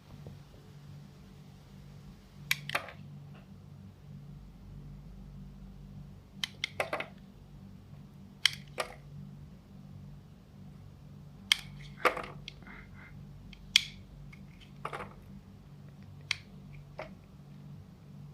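Knife cutting into a bar of soap: short, crisp crackling cuts at irregular intervals, about ten in all, over a steady low hum.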